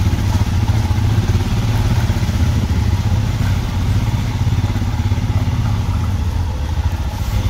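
Motorcycle engine running steadily while riding, a loud, even low drone.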